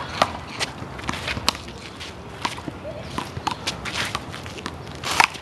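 A handball rally: the ball slaps off the wall and the players' hands again and again, mixed with running footsteps and short shoe squeaks on the court. The loudest group of sharp sounds comes near the end.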